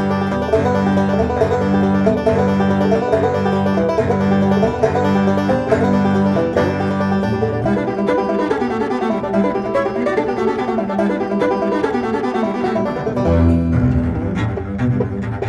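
Instrumental music led by plucked strings, with a pulsing bass line that drops out about halfway through and comes back near the end.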